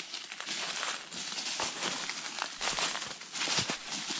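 Footsteps crunching and rustling through dry leaves and brush, one step after another in a walking rhythm.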